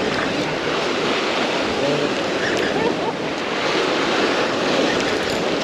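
Sea surf breaking and washing over the rocks of a jetty, a steady rushing wash with wind buffeting the microphone.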